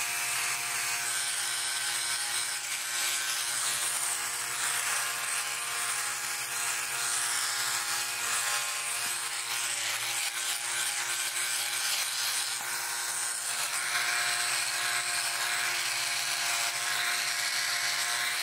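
Philips OneBlade electric trimmer-shaver running with a steady buzz as its oscillating blade cuts lathered stubble on the chin and jaw.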